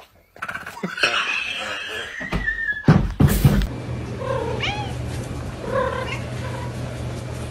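A cat meowing twice, each call rising and falling in pitch, over a steady low hum. Before it come a few seconds of mixed noise ending in loud knocks about three seconds in.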